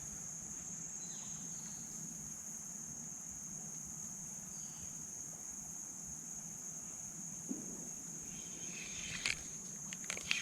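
Insects calling in a steady, high-pitched drone, with a few short clicks and rustles near the end.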